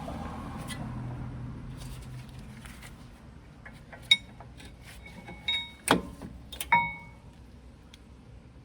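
Brake pad knocking against its caliper bracket, about four sharp metallic clicks with a short ring in the second half. The pad has up-and-down play in the bracket, the sign of a pad made to the wrong tolerances.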